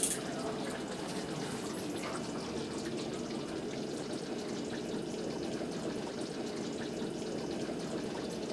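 Thick paneer and chickpea gravy simmering in a steel kadai on a gas flame: a steady bubbling, with small pops.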